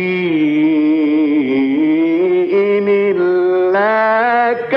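A man reciting the Quran in the melodic mujawwad style, drawing a phrase out into long held notes that waver and slide slowly downward and back up. The line breaks off briefly near the end.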